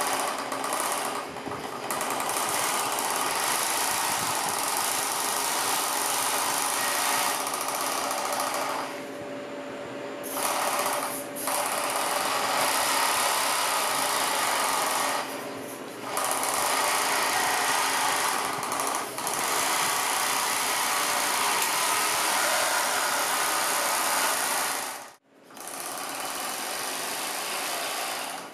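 Small electric motors driving the arm of a 3D-printed RC scale excavator, buzzing and whirring as the boom, arm and bucket move. The whirring stops and starts, with short pauses a few times.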